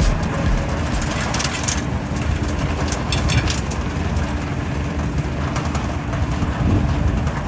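Tractor engine running a snowblower: a steady low rumble, with short bursts of crunching about a second and a half in and again about three seconds in.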